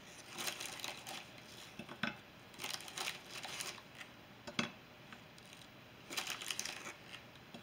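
Square strawberry cookies being set down one at a time in a glass baking dish: a few light taps on the glass, between bouts of crinkling from the cookie packet.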